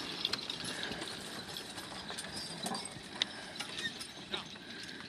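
Draft team pulling a plow: scattered, irregular clinks and knocks of harness and plow, with hoof falls.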